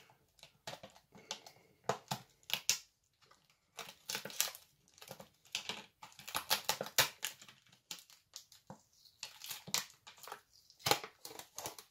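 Packaging crinkling and tearing in irregular bursts as a parcel is unpacked by hand.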